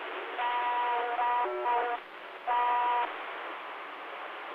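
CB radio receiver hissing with channel static, over which someone's transmission carries steady buzzy tones: a long stretch of about a second and a half that drops to a lower pitch briefly near its end, then a shorter half-second one.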